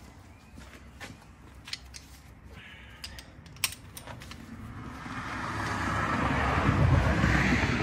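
Light metallic clicks and clinks of a lug wrench being handled at a car's wheel. From about five seconds in, a rushing noise with a low rumble swells up and becomes the loudest sound.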